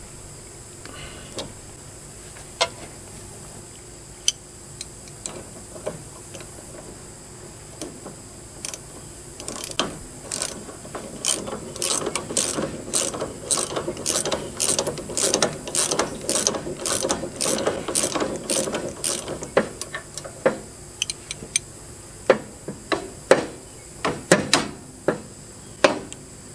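Hand ratchet wrench clicking as a nut on a lawn tractor's steering spindle is turned. Scattered single clicks at first, then long quick runs of ratchet clicks for about ten seconds from a third of the way in, thinning to occasional clicks near the end.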